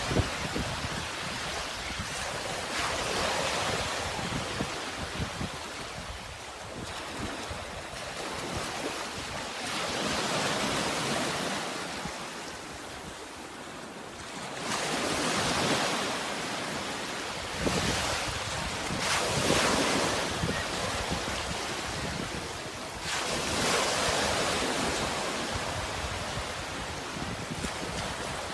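Sea waves breaking and washing in, the hiss swelling every few seconds and then falling back.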